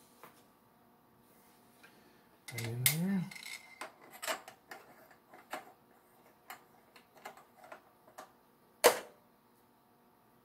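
Small metal clicks and taps as the dividing head on a milling machine is indexed and handled, with one sharper click near the end. A short hummed voice rises briefly a couple of seconds in.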